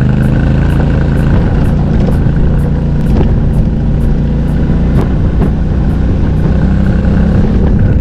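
Adventure motorcycle engine running steadily at cruising speed on a dirt track, with music with a steady beat faintly laid over it.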